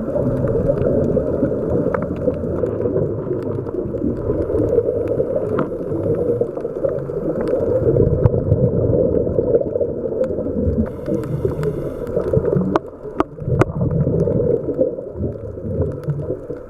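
Underwater sound of a scuba dive: the low, steady gurgling rumble of a diver's exhaled air bubbles, with scattered sharp clicks.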